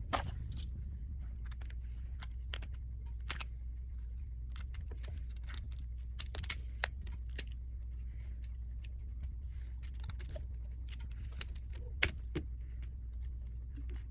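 Small tools and phone parts clicking and tapping irregularly during an iPhone battery replacement, over a steady low hum. A sharper click comes near the start and another about twelve seconds in.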